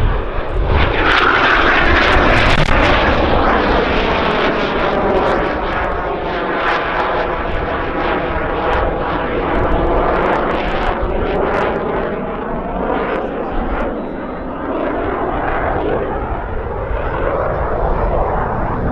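Jet noise from a Northrop F-5E Tiger II's twin General Electric J85 turbojets as it flies a display pass overhead. The noise is loudest in the first few seconds and has a rippling, sweeping tone as the jet moves across the sky.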